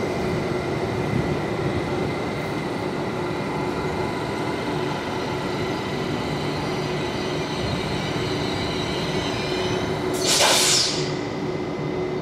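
Meridian Stadler FLIRT electric multiple unit rolling slowly past, its traction equipment giving a steady whine over the rumble of the wheels on the rails. About ten seconds in comes a brief, loud hiss.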